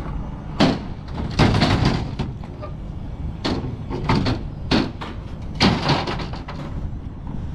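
About six bangs and clatters at uneven intervals over a steady low rumble: heavy fairground equipment being handled and put up.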